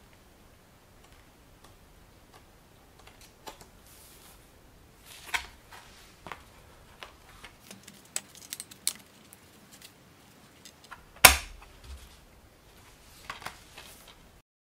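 Handling of a plastic DVD keep case and its paper booklet: scattered light clicks, taps and paper rustles, with one loud sharp plastic snap about eleven seconds in as the case is shut.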